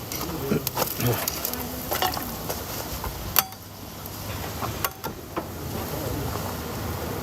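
Food sizzling as it fries, with scattered clicks and scrapes of metal utensils stirring it; one sharp clink about three and a half seconds in.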